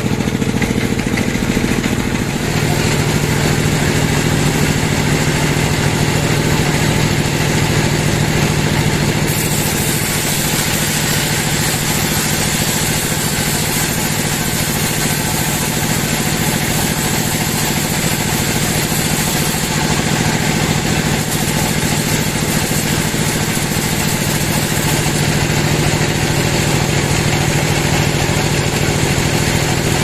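Band sawmill running and sawing lengthwise through a teak log: a steady mechanical drone with the hiss of the band blade in the wood. The hum shifts lower a couple of seconds in, and the hiss grows brighter about nine seconds in.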